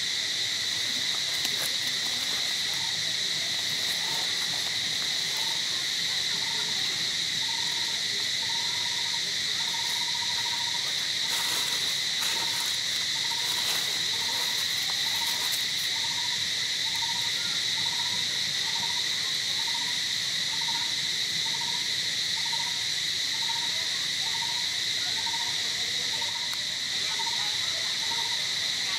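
Steady, high-pitched chorus of insects, with a short hooting note from an animal repeated about once every 0.7 seconds over it, and a few brief crackles midway.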